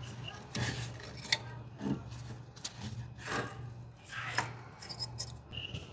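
Irregular rubbing and scraping from heavy battery cables being handled and worked into inverter terminals, with one sharp click a little over a second in. A steady low hum runs underneath.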